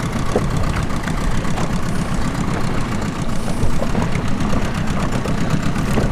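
Small boat's outboard motor running steadily at low speed, a continuous low hum.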